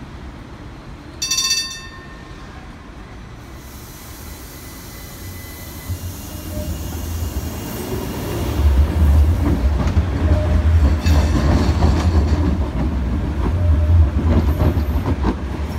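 A Citylink tram-train passes close by on street track. A brief horn toot comes about a second in. Then the rumble of its motors and steel wheels on the rails builds and is loudest from about halfway through to near the end.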